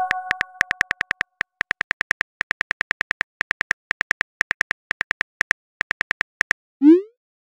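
Phone keyboard typing clicks, a quick run of several ticks a second broken by short pauses, as a text message is typed out. Near the end comes a short, loud rising swoosh as the message sends. The ring of a message chime fades away at the start.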